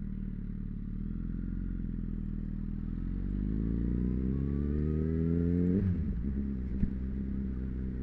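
Motorcycle engine pulling away under throttle. The revs climb steadily from about three seconds in, drop sharply just before six seconds as it shifts up, then hold steady.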